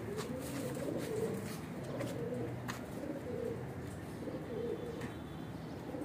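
Domestic pigeons cooing, several birds overlapping in a low, continuous murmur, with a few faint clicks.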